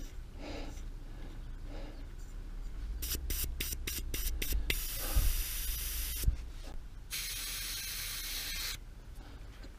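Air hissing out of a fat-bike tyre valve as the tyre pressure is let down after being pumped up for climbing: a quick run of short spurts about three seconds in, then two longer steady releases of a second or two each.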